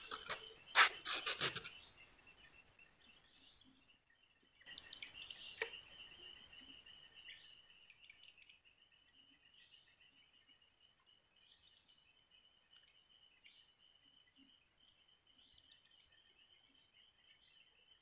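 Night insects chirping and trilling steadily in a high, pulsing chorus. Two louder bursts of noise cut across it, one right at the start and one about five seconds in.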